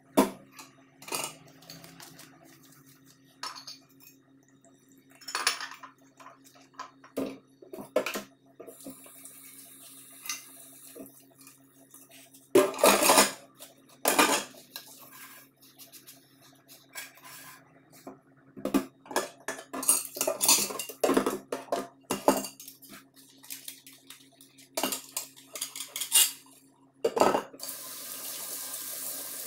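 Dishes and cutlery clattering and clinking against each other and the stainless steel sink while being washed by hand, in irregular knocks. Near the end the tap is turned on and water runs steadily onto the dishes.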